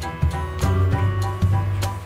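Background music with a steady beat, a deep bass line and short repeated melody notes.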